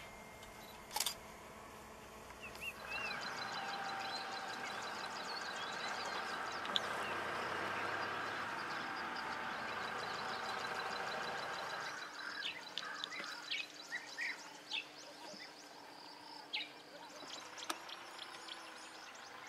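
Outdoor bush ambience with birds chirping. A dense, steady chorus of calls runs until about twelve seconds in, then thins to scattered chirps. There is one sharp click about a second in.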